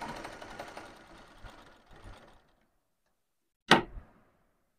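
Zig-zag sewing machine stitching with a fast, even clatter that slows and stops about two seconds in. It is test-stitching with the thread-tension spring tightened to cure loose, looped zig-zag stitches. Near the end comes a single sharp knock.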